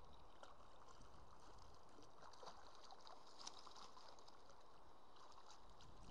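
Faint splashing of a hooked trout thrashing at the surface and in a landing net in shallow river water, heard as scattered light splashes over a soft water hiss, a little busier about three and a half seconds in.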